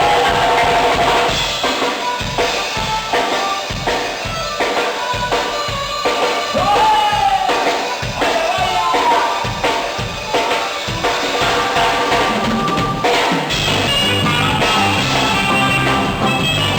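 Duranguense band music with a steady, driving drum beat under a melody line; about 13 seconds in, a pulsing bass line enters and the sound fills out.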